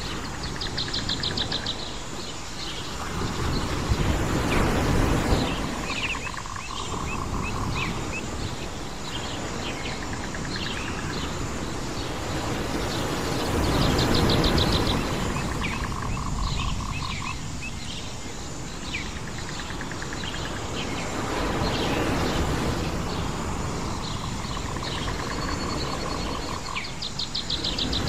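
Island nature ambience: birds chirping, with repeated rapid trills, over a steady rushing sound that swells and fades every several seconds.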